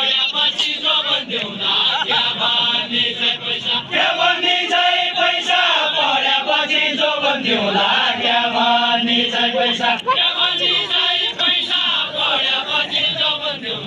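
A group of voices singing a Deuda folk song together in a chant-like line, with some notes held for a second or more.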